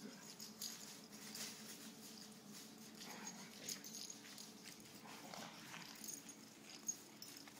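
Two dogs playing in a backyard: faint scattered rustles and footfalls of paws on dry grass and pine straw, with one brief sharp click about seven seconds in.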